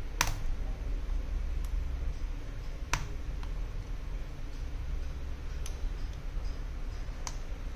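Four sharp clicks a couple of seconds apart from a thin opening tool catching against the iPhone 11 Pro's frame as it is slid along the screen edge, over a steady low hum.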